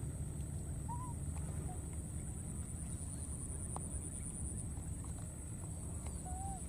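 Outdoor ambience: a steady low rumble and a constant high-pitched hum, with three short rising-and-falling chirps from an animal, two about a second in and one near the end, and a faint click in the middle.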